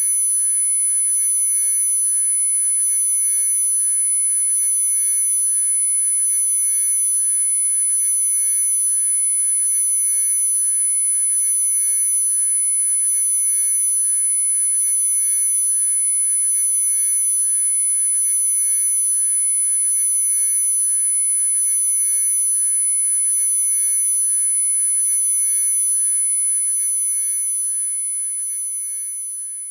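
Synthesized frequency-therapy tones: a steady high-pitched sine tone layered with several quieter steady tones, holding unchanged and then fading out over the last few seconds.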